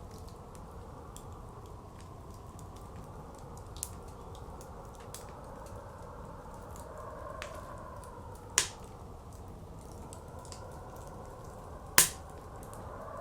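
Wood fire crackling with scattered sharp pops; two loud pops stand out, one past the middle and one near the end. Behind it, blizzard wind blows steadily, swelling and easing.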